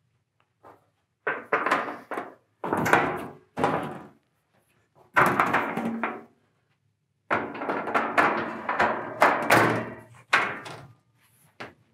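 Metal shelves being lifted and set onto the cantilever arms of a shelving frame: clanks and thunks in four bursts.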